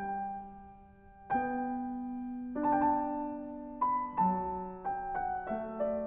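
Background music on solo piano: slow, gentle notes and chords, each struck and left to ring and fade.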